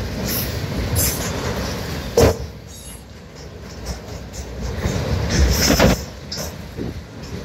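Autorack freight cars rolling past, a steady rumble of steel wheels on rail with a sharp metallic bang about two seconds in and a cluster of clanks a little past halfway.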